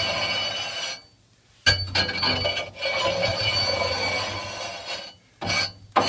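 Steel scraping rod dragged across the top of an outdoor wood boiler's heat exchanger, scraping off soot and ash deposits, with the metal box ringing as it scrapes. One short stroke, a pause, a long stroke of about three seconds, and a brief scrape near the end.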